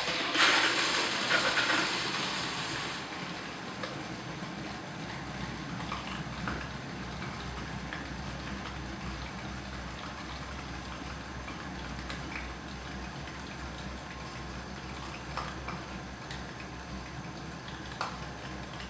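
Water Blaster HY 10000 aquarium pump starting up for the first time. It gives a loud gush of water and air for about three seconds as the air is pushed out of the lines, then settles to a steady low hum with faint water sounds. Once running it is quiet.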